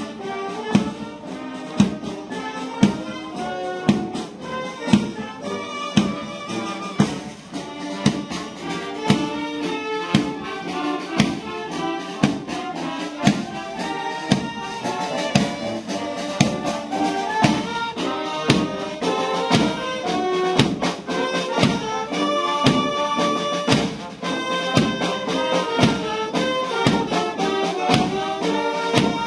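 Instrumental music with brass over a steady, regular beat.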